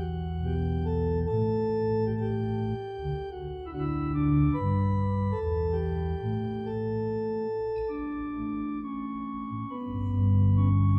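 Organ playing slow, sustained chords with no singing, an instrumental passage of the communion hymn.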